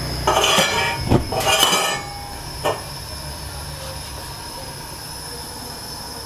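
Gas stove burner lit with a match: the gas catches with a rough whoosh in the first two seconds, then burns with a steady hiss and a thin high whistle. A single click comes near the three-second mark.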